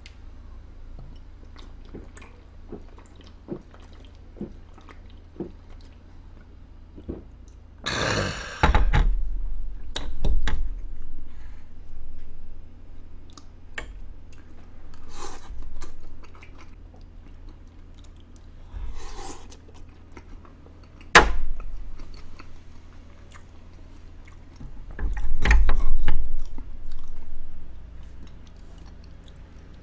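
Close-up chewing and mouth noises of a person eating baked cheese potatoes, with scattered small clicks and a few louder knocks, the sharpest about 21 seconds in.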